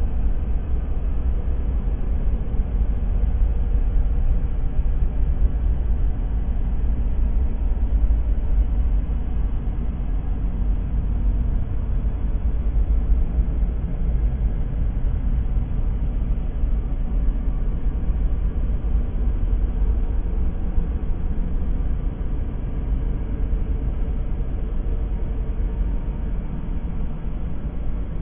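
Empty-room ambience: a steady low rumble with a fainter hiss above it, unchanging, with no distinct events.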